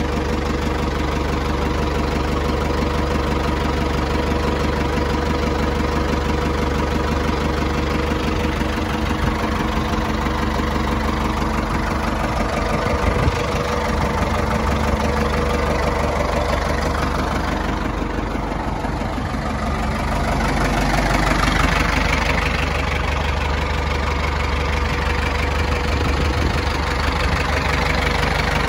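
Ford 6610 II tractor's four-cylinder diesel engine idling steadily, growing a little louder and fuller about two-thirds of the way through.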